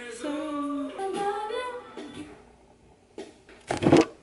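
A woman humming and singing a few notes to herself, then a couple of short thumps from the camera being handled, the loudest just before the end.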